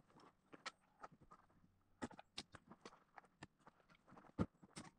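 Irregular wooden knocks and clacks of firewood being split and handled for kindling, mixed with steps on gravel. The sharpest knocks come about two seconds in and again near the end.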